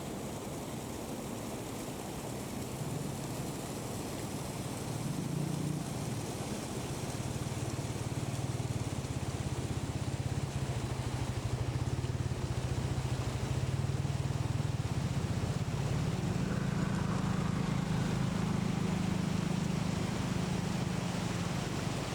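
A motor engine drones at a low pitch over a steady rushing noise, growing louder and rising in pitch about sixteen seconds in.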